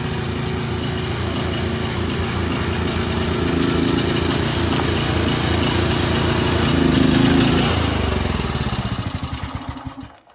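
Small air-cooled single-cylinder engine of a Wolf ride-on-mower go-kart running steadily, growing louder a couple of times. Near the end it is switched off: the firing breaks into slowing separate thuds and stops.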